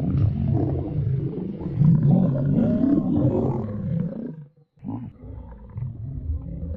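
Stomach-growl sound effect: a loud, low rumbling and gurgling with a wavering pitch. It breaks off briefly about four and a half seconds in, then resumes.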